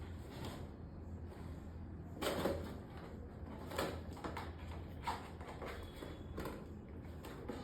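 A few light knocks and rustles, a second or more apart, over a steady low hum.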